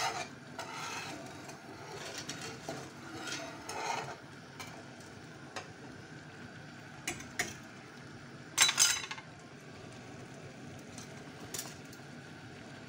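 Wire whisk stirring simmering tamarind chutney in a metal pan, scraping and clinking against the pan. The stirring fades after a few seconds, followed by a few sharp clinks, the loudest a short clatter about two-thirds through, over the faint sound of the chutney cooking.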